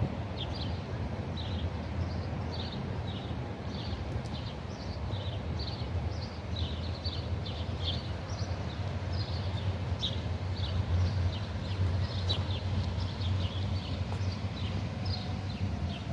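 A bird calling with short, high chirps, two or three a second, over a steady low rumble.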